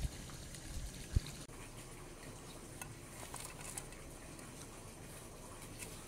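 Water pouring steadily from a pipe into a garden pool, a low trickling wash. A short thump about a second in, and a few faint light ticks later on.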